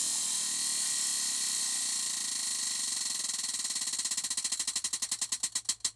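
Tabletop prize wheel spinning, its pointer ticking against the pegs in a fast rattle that slows into separate clicks, further and further apart, and stops near the end as the wheel comes to rest.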